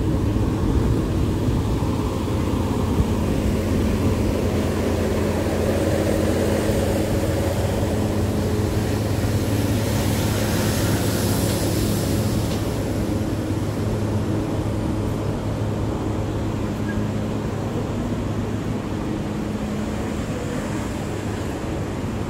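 Miami Metromover people-mover car in motion, heard from inside: a steady hum of the drive with running noise. A hiss swells for a few seconds about ten seconds in, then eases off.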